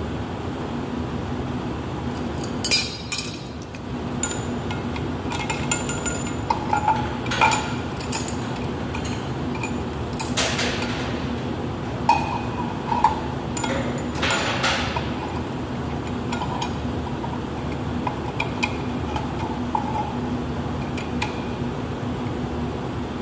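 Scattered metallic clinks and knocks of a stainless-steel pressure gauge and its fittings being handled and fitted onto a hose adapter, most of them in the first two-thirds, over a steady background hum.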